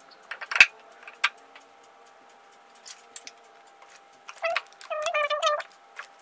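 A plastic water jug and bottles of water set down on a small wooden folding table as a load test, giving a few knocks and clunks, the loudest about half a second in. Later there is a short run of high squeaks.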